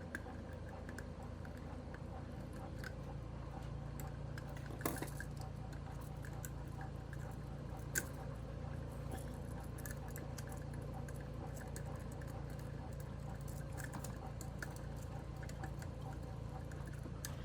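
Faint scattered clicks and small taps of an electrical wire end being worked straight, with two sharper clicks, one about five seconds in and one about eight seconds in, over a steady low hum.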